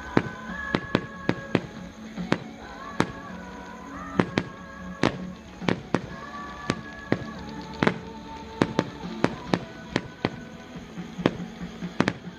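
Fireworks going off in an irregular string of sharp bangs and pops, sometimes several a second, over music playing in the background.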